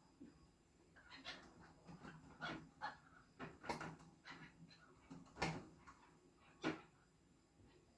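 Birds feeding: irregular sharp taps, the loudest about halfway through and near the end, with short squeaky calls between.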